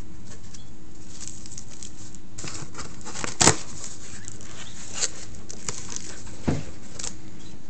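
Cardboard box being opened by hand: scattered rustles and scrapes of the cardboard flaps and plastic packing, with a sharp knock about three and a half seconds in and a smaller one about six and a half seconds in.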